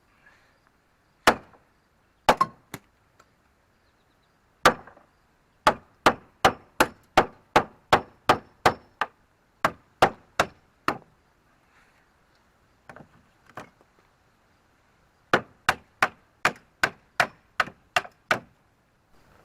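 Heavy blows from a hand tool striking the flatbed's sideboard to clear room for the new mud tires. A few single strikes come first, then a fast run of about fifteen at roughly three a second, two lighter knocks, and a second run of about nine.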